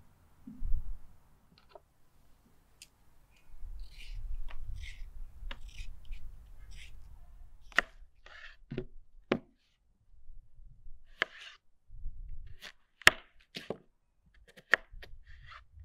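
A hand peeler scraping the skin off a raw potato, then a knife cutting the potato into chunks, the blade knocking sharply on a wooden cutting board several times.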